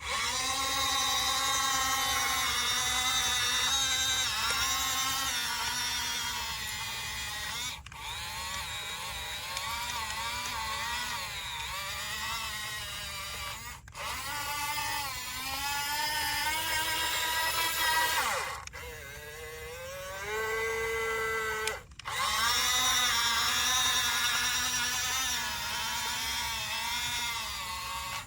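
Electric motors of an RC model bulldozer whining as it works, the pitch rising and falling as the motors speed up and slow down, with a few brief sudden breaks.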